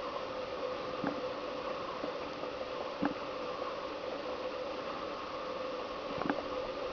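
A woodpecker tapping into pine wood: three single sharp knocks, a couple of seconds apart, over a steady hiss.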